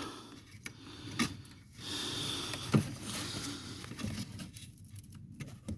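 Faint handling noises: rustling with two light clicks, one about a second in and one near three seconds, as the freshly removed plastic neutral safety switch is worked at by hand.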